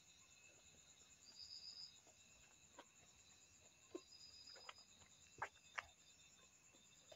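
Near silence: a faint, steady high-pitched insect trill, with a few soft mouth clicks and smacks from chewing, the two loudest a little past halfway.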